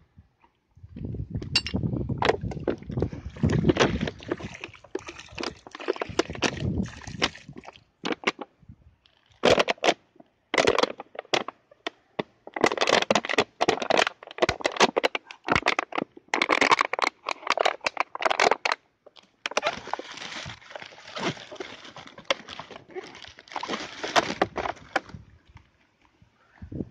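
A plastic drink bottle being squeezed and crushed by hand, crackling in several bursts of a few seconds each with short pauses between them.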